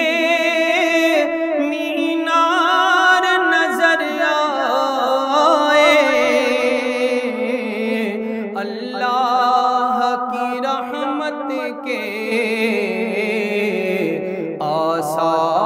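Male naat reciter singing unaccompanied, drawing out long sustained notes with a wavering, sliding pitch and no clear words.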